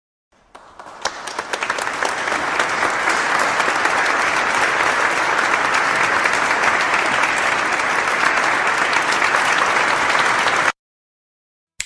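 Crowd applause sound effect: many hands clapping, swelling up over the first couple of seconds, holding steady, then cutting off abruptly near the end.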